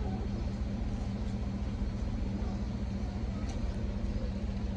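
Steady outdoor street ambience: a constant low hum under an even rush of noise, with no single event standing out.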